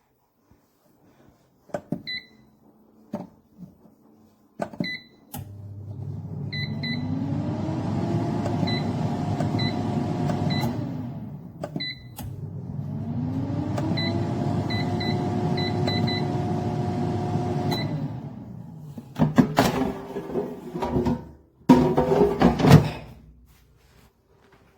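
Xiaomi Smart Air Fryer 6.5L: several short beeps from its controls, then its fan motor spinning up with a rising whine, running a few seconds and winding down, twice in a row, with a few soft beeps while it runs. Near the end comes a burst of clattering knocks.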